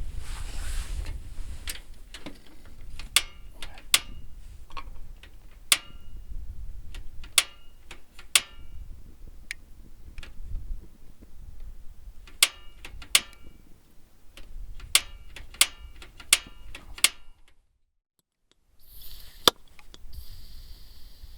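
Camp cooking gear being handled: irregular sharp metallic clicks and clinks with a short ring, in scattered single strokes and small clusters. After a brief cut to silence near the end, a steady high hiss follows.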